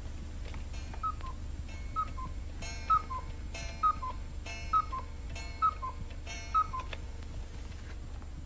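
Cuckoo clock calling seven times, each call a falling two-note 'cu-ckoo' about a second apart, striking seven o'clock.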